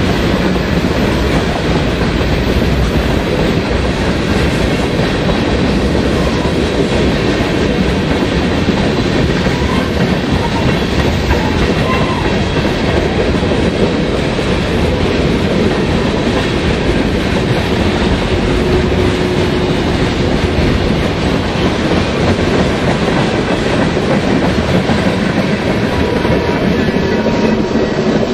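Tank cars of a Union Pacific manifest freight train rolling past close by: a loud, steady din of steel wheels on rail.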